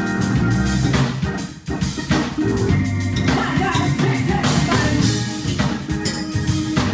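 Gospel praise music with a steady beat: organ, drum kit and singing.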